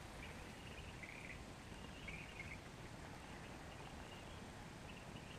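Faint outdoor ambience at a lake: a steady hiss with a few short, high chirps, most of them in the first half.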